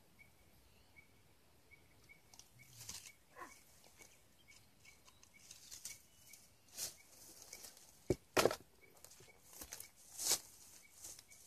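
Scattered rustling, scraping and knocks from hands picking prickly pear cactus pads among dry leaves, brush and rock, with several louder knocks in the second half. Under it, a faint high tick repeats two or three times a second.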